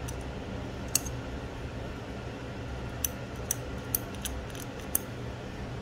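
Small sharp metal clicks of a steel tweezer tool touching the Microtech Scarab 2 knife's handle and parts: one about a second in, then about five in quick succession near the end, over a steady low hum.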